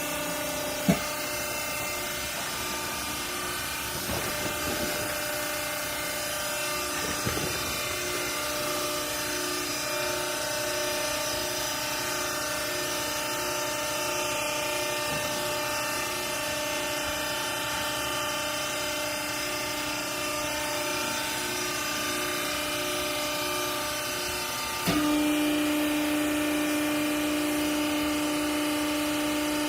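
Hydraulic clothes baler's pump motor running with a steady hum, with a sharp click about a second in. About 25 seconds in it steps up louder with a stronger low hum.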